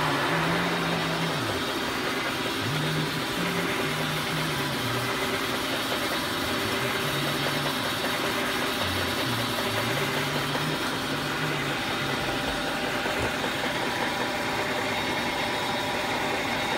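Milling machine running during a roughing cut in Ampco 18 wear bronze: a steady, loud machine noise with a low hum that steps between a few pitches, sliding up and down between them.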